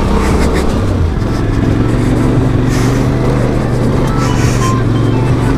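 Yamaha Tracer 700's 689 cc parallel-twin engine running under load as the motorcycle climbs a rocky dirt track, its pitch stepping up about a second in as the revs rise, then holding steady.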